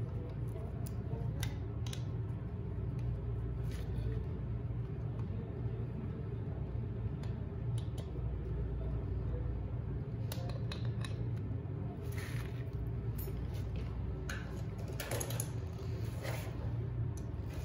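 Screwdriver turning a screw in the blade holder of a metal floor scraper, with small metallic clicks, over a steady low hum. In the second half come several short scraping rasps as the metal scraper is handled.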